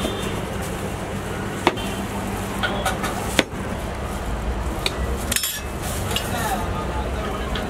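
Plastic blender jars, lids and utensils handled on a counter: two sharp knocks, about a second and a half and three and a half seconds in, and a few lighter clinks later, over a steady low background hum.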